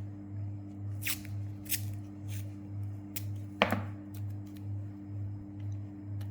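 Sharp little plastic clicks and taps as 4x4 Rubik's cube pieces are handled and pressed into place: several over the first few seconds, the loudest about three and a half seconds in. Under them is a low pulsing drone of background music.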